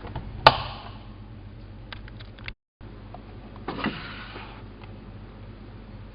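Elin WM26AAA front-loading washing machine being handled before a wash: a sharp click with a brief ring about half a second in, a few light ticks, then a short rustling clatter a little past the middle.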